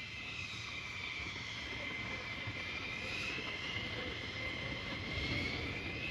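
Jet noise from a Thunderbirds F-16 in flight: a steady rush with a high whine that dips and rises again in pitch, growing slightly louder toward the end.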